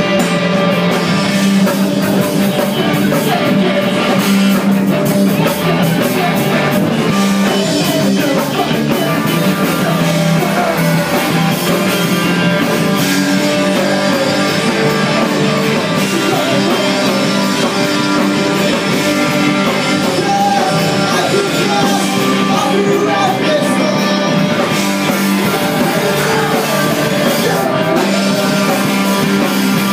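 Rock band playing live, loud and unbroken: electric guitars, bass guitar and drum kit, with a singer's voice over them.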